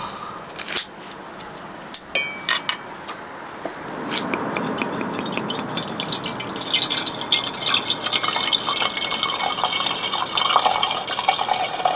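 Water dripping and splashing: scattered drips at first, then a steady patter of many small splashes from about four seconds in.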